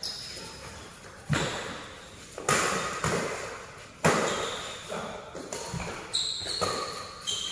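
Badminton rally: rackets striking the shuttlecock every second or so, each hit sharp and echoing in a large hall. The three loudest hits come in the first four seconds, then lighter hits follow, with shoes squeaking on the court near the end.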